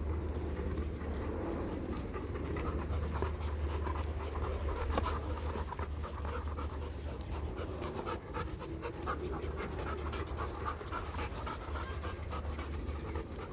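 A dog panting steadily, close by, over a steady low rumble.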